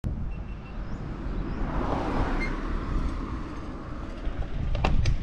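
Wind rumbling on an action camera's microphone as a bicycle rolls slowly along a street, with a rising and falling hiss about two seconds in and a few sharp clicks near the end.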